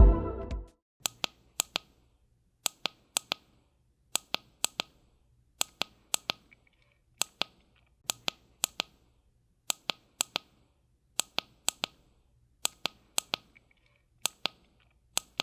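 Sharp clicks in quick groups of two or three, with a group about every second and a half.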